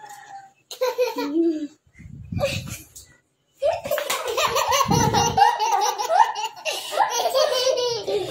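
Young children laughing hard: a few short bursts, a brief pause, then a long unbroken belly laugh from about three and a half seconds in.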